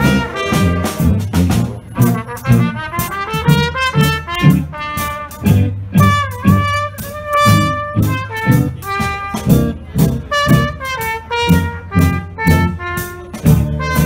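Small jazz brass band playing a blues: trumpets carry the melody over a pulsing tuba bass line and a steady beat.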